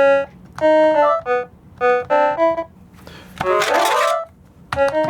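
Yamaha Handysound HS-500 mini keyboard's built-in game mode sounding: short bursts of electronic note phrases, a hissy burst with sweeping tones about three and a half seconds in, then a fast run of notes near the end.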